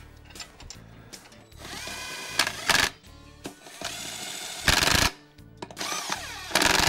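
Cordless impact wrench running lug nuts onto a truck wheel in three short bursts, the first rising in pitch as it spins up, the last starting near the end.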